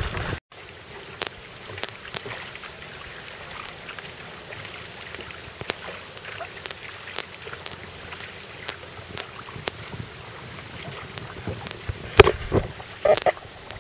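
Outrigger canoe (va'a) under paddle: a steady hiss of water along the hull, dotted with frequent sharp ticks, and a louder stretch of splashing about twelve seconds in.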